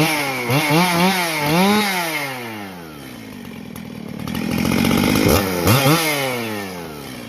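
Freshly rebuilt Husqvarna 268 two-stroke chainsaw running: three quick blips of the throttle in the first two seconds, its pitch rising and falling each time, then settling to idle, and two more blips about five seconds in before it drops back to idle. It runs cleanly, sounding nice after the rebuild.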